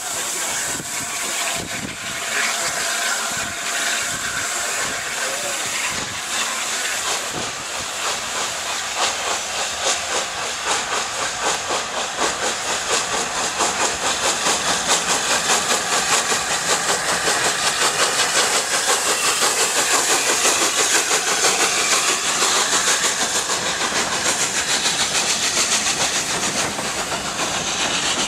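Steam locomotive pulling a passenger train away under power, with a steady hiss of steam and regular exhaust beats about twice a second that grow stronger from about eight seconds in.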